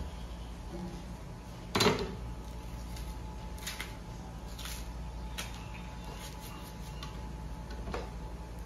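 Green banana being peeled with a kitchen knife on a wooden cutting board. There is one sharp knock on the board about two seconds in, then a few faint clicks as the peel is worked off by hand.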